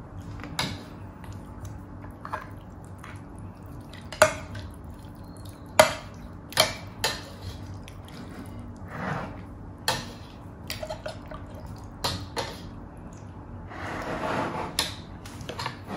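Spoons clinking against plates and a glass serving dish, about a dozen sharp, irregular clinks, as pork and vegetables are scooped out of sour soup. Softer liquid sounds of broth being spooned come in between, including a longer one near the end.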